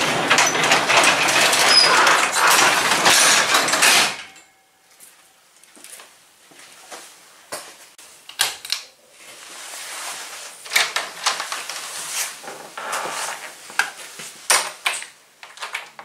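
A shed door being pulled shut, a loud scraping rattle for about four seconds, then scattered knocks and clicks of handling.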